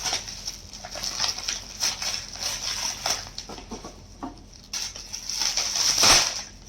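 Gift packaging rustling and crinkling as it is handled and pulled open, an irregular run of crackles with the loudest crinkle about six seconds in.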